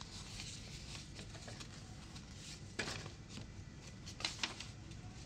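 Quiet rustling of a paper instruction sheet being handled and unfolded, with a few brief crinkles, one just before three seconds in and a couple more about a second and a half later.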